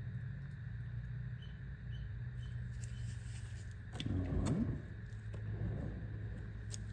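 Handling noise from a toy's packaging: a few faint clicks and a short rustling thump about four seconds in, over a steady low hum.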